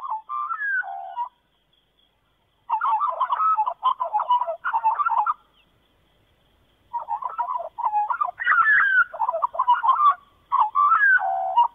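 Birds calling in fast chattering phrases with some rising and falling notes, three bouts of a few seconds each separated by short pauses.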